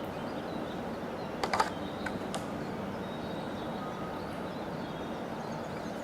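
Steady background hiss with a few light clicks, a cluster about a second and a half in and one more just after two seconds.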